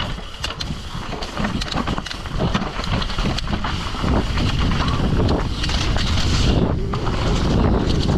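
Mountain bike riding down a rough trail: wind rushing over the microphone, with the bike rattling and knocking in quick clicks over the bumps. It gets louder about four seconds in.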